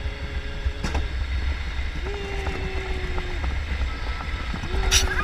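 Summer toboggan sled running fast down a stainless-steel trough: a steady low rumble with wind on the microphone. A steady high tone is held twice, each for over a second, with a knock about a second in and a sharp click near the end.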